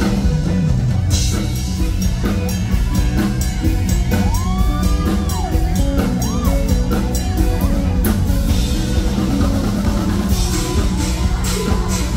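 Live band playing a Thai luk thung song through the stage sound system, drum kit keeping a steady beat under a female singer's voice.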